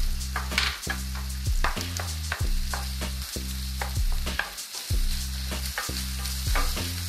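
Onions and cherry tomatoes sizzling in a hot oiled non-stick frying pan while a wooden spatula stirs them, knocking and scraping against the pan many times. Low background music with held bass notes plays underneath.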